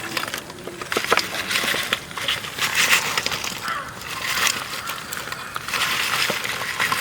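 Dry crackling and rustling with many sharp clicks, coming in uneven bursts: crisp fried chicken pieces being tipped and moved about on a banana leaf.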